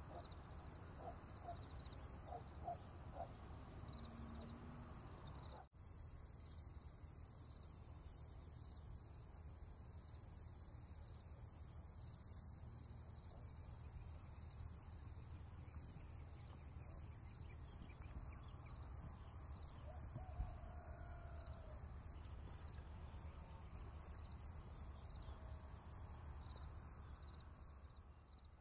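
Faint steady background ambience: a high, evenly pulsing chirr over a low hum, with a brief dropout about six seconds in.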